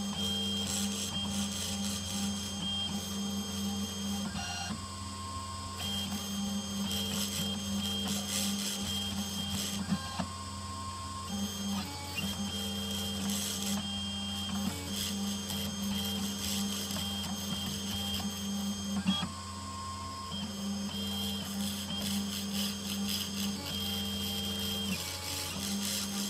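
Small desktop CNC router milling a copper-clad circuit board with a V-bit engraver: the spindle motor hums steadily while the stepper motors whine in short moves, their tones starting, stopping and changing every few seconds as the bit traces the copper tracks. Two sharp ticks come about ten and nineteen seconds in.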